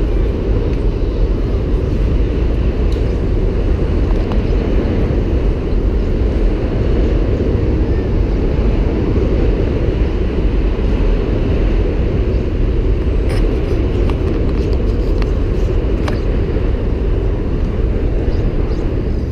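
Loud, steady low rumble of outdoor city noise, with a few faint clicks.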